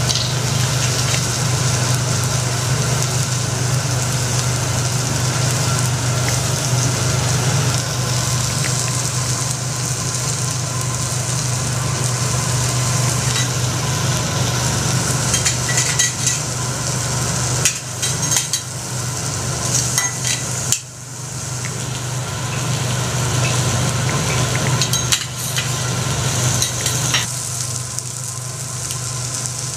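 Food sizzling on a teppanyaki iron griddle, a continuous hiss over a steady low hum, with scattered sharp clicks and taps mostly in the second half.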